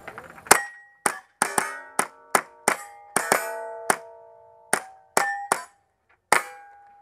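A rapid string of about a dozen gunshots in a timed speed-shooting run, each hit setting a steel target ringing with a bright clang that fades quickly, the steel plates ringing at several different pitches.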